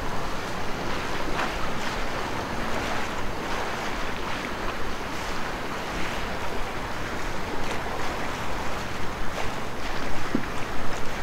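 Wind buffeting the microphone over small waves lapping on open lake water, a steady rushing noise with a few faint splashes or ticks in it.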